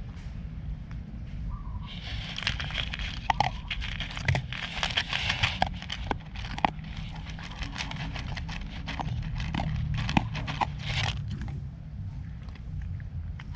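A cat and dog crunching dry pet food: close, rapid chewing crackles with sharp bites, starting about two seconds in and easing off near the end, over a steady low rumble.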